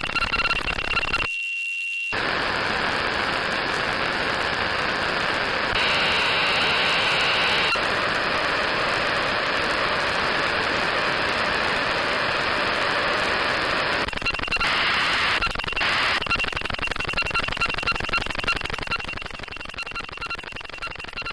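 Synthesized aircraft-style noise from a VCV Rack 2 modular synth patch: a steady hiss with a thin high whistle in it. About a second in the hiss drops out for under a second, leaving only the whistle, and the upper part of the hiss shifts a few times before easing off slightly near the end.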